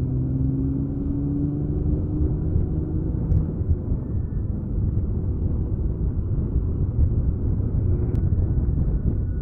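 Sugeng Rahayu intercity bus's diesel engine running with its semi-'ngorok' (snoring) exhaust, giving a deep steady rumble. A low drone that rises slightly in pitch blends into the rumble after about three seconds.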